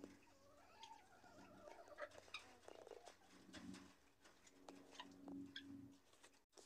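Faint, soft calls of guineafowl and chickens close to the microphone: wavering notes early on, then two low drawn-out notes, with scattered light clicks.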